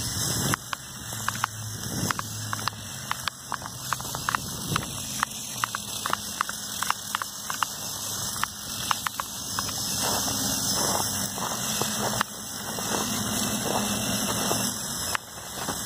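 Lego Technic RC snowmobile driving over snow: its two Lego buggy motors hum, the note shifting up and down as it drives, over a dense run of sharp clicks from the tracked drive.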